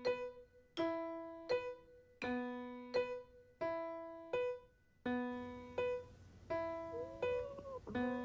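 Gentle background piano music, a new note or chord struck roughly every 0.7 s and left to ring away.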